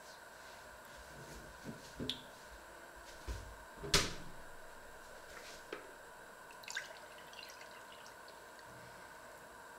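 A few short knocks and clicks of kitchen things being handled, the loudest about four seconds in, over a faint steady hum.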